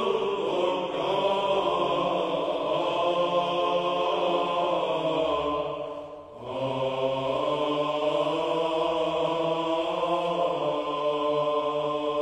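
Sung chant, voices holding long notes. There is a short break about six seconds in, then a new phrase begins over a low held note.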